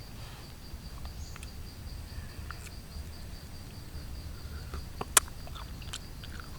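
Someone chewing food, heard as scattered small mouth clicks, with one sharp click about five seconds in. A steady high-pitched tone and a low rumble run underneath.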